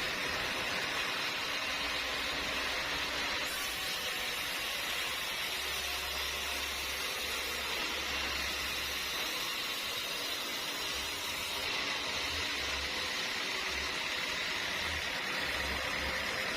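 Steady machine noise with a strong hiss, even in level throughout, with an intermittent low rumble underneath.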